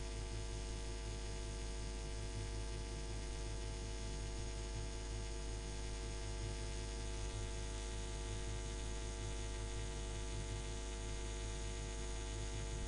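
Steady electrical mains hum with a buzz of evenly spaced overtones, unchanging throughout.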